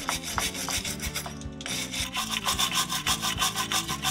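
Steel wire hand brush scrubbing rust off a car's rear wheel hub and brake disc, in brisk back-and-forth strokes of about six a second. There is a short lull about one and a half seconds in, after which the strokes come louder.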